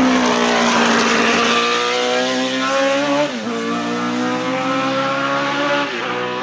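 Cosworth DFV 3.0-litre V8 of a Tyrrell P34 six-wheeled Formula 1 car accelerating away, its pitch climbing steadily. The pitch dips briefly where it shifts up, about three seconds in and again near the end, and the sound slowly fades as the car pulls away.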